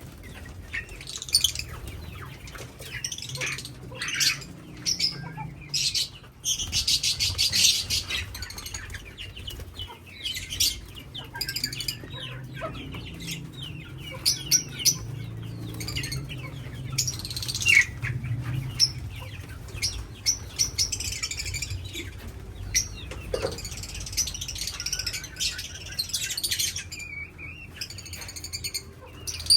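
A colony of parrots in an aviary, calling with many short, high-pitched chirps and squawks, with bursts of wing flapping throughout.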